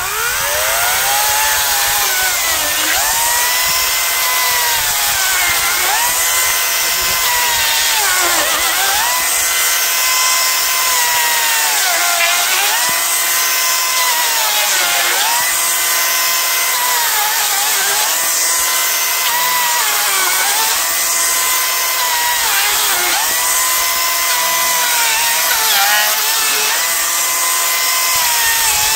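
Parkside PKSA 40-Li A1 dual-battery cordless electric chainsaw running continuously and cross-cutting a spruce log into rounds. The high motor and chain whine sags in pitch each time the bar bites into the wood and climbs back between cuts, about every two to three seconds.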